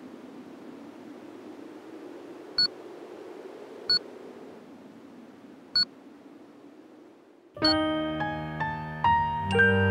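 Steady low background noise broken by three short, high electronic beeps, unevenly spaced. About two seconds before the end, music starts abruptly: keyboard notes held over a low bass.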